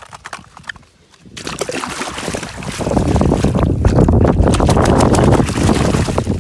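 Mud-caked toy vehicles clicking against each other in a plastic basket, then, from about a second and a half in, loud splashing and sloshing as a hand swishes them hard through water to wash the mud off.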